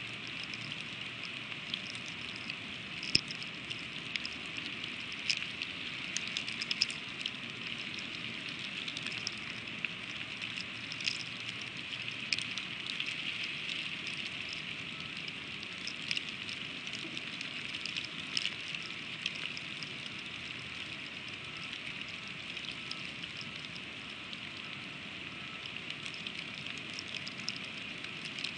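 Freezing rain falling on an eagle nest: a steady hiss with frequent sharp ticks of ice pellets striking, one louder tick about three seconds in.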